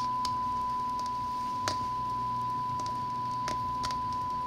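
Steady 1 kHz sine-wave test tone played from a test record through an Ortofon Concorde Club DJ cartridge, with a few light clicks, the clearest about a second and a half in.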